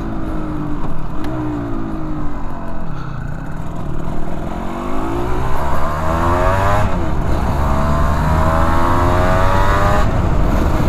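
1991 Suzuki RGV250 VJ22's two-stroke V-twin engine, breathing through Arrow exhausts, pulling away and accelerating. The revs rise and dip at first, then climb twice through the gears, with a gear change about seven seconds in and another near the end.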